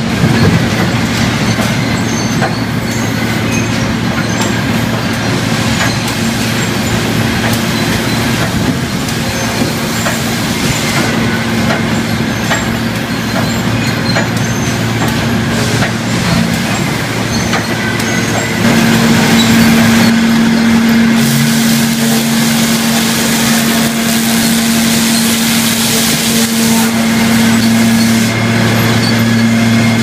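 Sawmill log-handling machinery running: conveyors, chains and motors making a loud, steady industrial din over a constant low hum, with scattered clatter. It grows a little louder about two-thirds of the way through.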